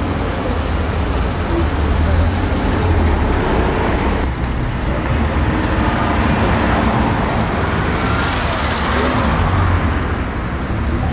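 Deep, steady engine rumble of a Mercedes-AMG GT R's twin-turbo V8 as the car drives off. About four seconds in it cuts to a Rolls-Royce Ghost's V12 running at low speed as the car creeps forward.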